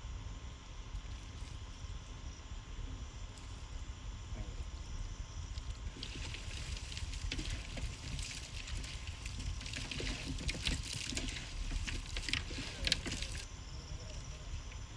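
Hands mixing chicken pieces coated in a wet spice-and-chili masala in a large wide pan: a wet, crackly sound from about six seconds in until shortly before the end, over a low steady rumble.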